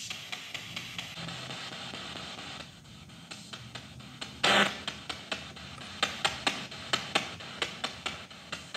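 SB7 spirit box sweeping through radio frequencies: hissing static chopped by rapid clicks, about three a second, with one short louder burst near the middle.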